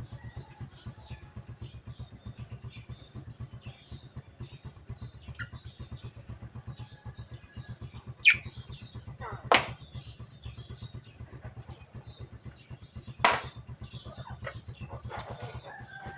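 Javan myna giving three loud, short, harsh calls: two close together about halfway through and one more a few seconds later. Softer chirping of other birds runs throughout, over a steady low pulsing hum.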